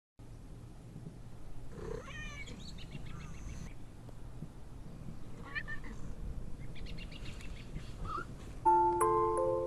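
A cat meowing several times in separate calls, with chiming mallet-percussion music starting near the end.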